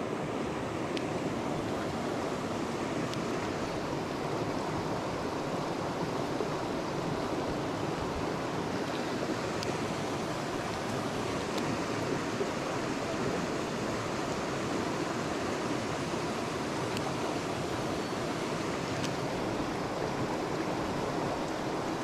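Mountain stream rushing steadily over rocks and a small cascade.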